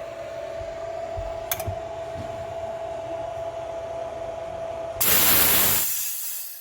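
GX CS2 portable PCP air compressor running with a steady hum and whine. About five seconds in, a loud rush of air begins and fades away over about a second and a half, typical of the bleed valve venting the pressure.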